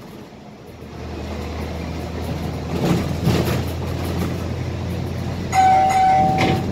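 Scania K320 IA articulated bus running on the road, heard from the driver's cab: steady engine and road noise that builds about a second in. Near the end a steady electronic tone sounds for about a second.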